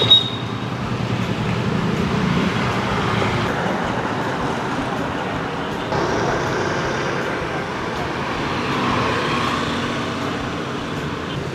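Steady road traffic noise: a continuous hum of passing vehicles.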